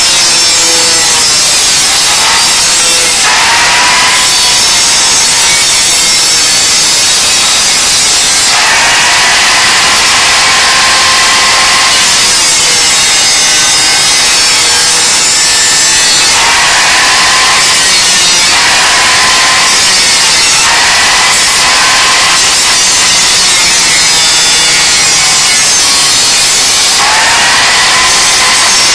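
Electric power tool cutting, a loud continuous rasping noise over a motor whine that rises and falls in pitch every few seconds as the load changes.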